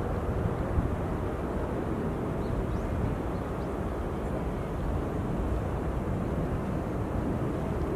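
Steady low outdoor rumble of background noise, with no distinct events.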